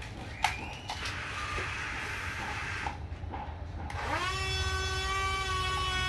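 Huina RC wheel loader's electric drive whirring as it rolls forward. From about four seconds in comes a loud, steady electronic horn tone from a toy's sound module, sliding up in pitch as it starts.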